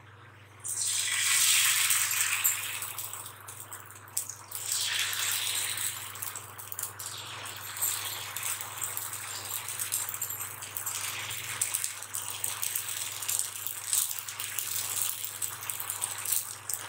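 Adai batter sizzling on a hot, lightly oiled cast-iron dosa tawa as it is poured on and spread. The sizzle starts suddenly about a second in and is loudest for the next two seconds, then goes on as a softer, uneven sizzle with small crackles.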